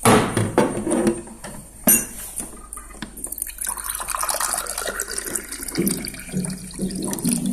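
Water from a water dispenser's tap pouring into a small glass tea glass, filling it. A few knocks and a sharp click come in the first two seconds, before the steady pour.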